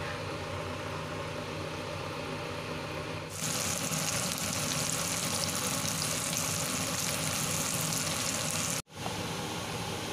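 A pot of chicken papaya soup bubbling at a boil; about three seconds in, a cut to shrimp sizzling in a frying pan, a louder, brighter hiss. Near the end, after another cut, a spinach and pork stir-fry sizzles in a wok while it is stirred with a wooden spatula.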